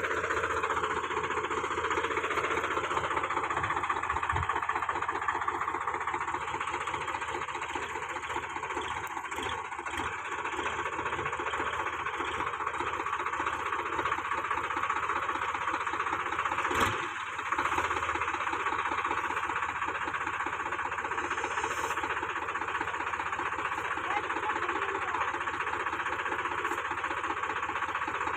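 Solis Yanmar 5015's three-cylinder diesel engine running steadily, with the tractor bogged in deep mud. There is one brief knock a little past halfway through.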